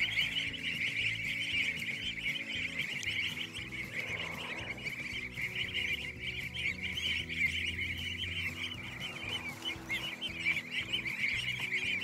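A large flock of goslings peeping without a break, many high chirps overlapping, over background music.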